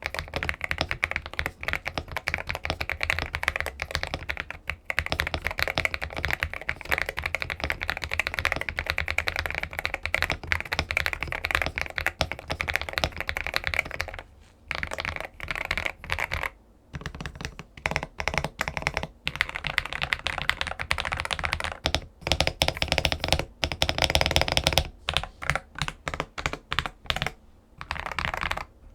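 Fast typing on a mechanical keyboard: a dense run of key clacks with a few brief pauses, thinning to scattered single keystrokes near the end.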